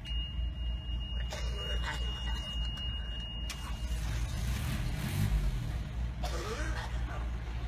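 Small site dumper's diesel engine running with a steady low rumble.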